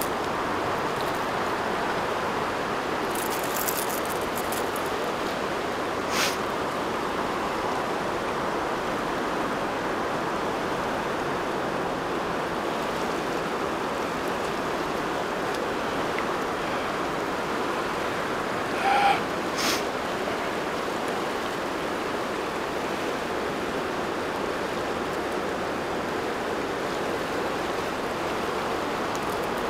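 Steady rushing of flowing stream water, with a few small sharp clicks: one about six seconds in and two close together about two-thirds of the way through.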